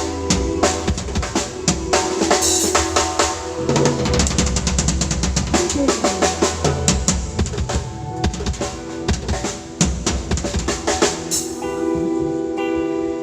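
Reggae band playing live at a sound check, the drum kit to the fore with bass drum and snare rimshots over held chords. Near the end the drumming thins and the held chords stand out.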